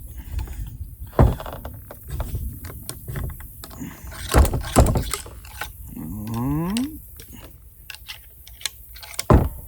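Sharp knocks and scraping handling noise while loading a .50 calibre muzzleloading pistol, with a short squeal rising in pitch partway through.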